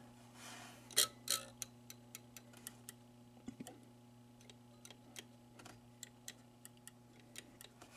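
Playfield switches on a 1980 Williams Firepower pinball machine being tripped by hand one after another during the switch test: a run of light, irregular clicks, the loudest about a second in, over a steady low hum.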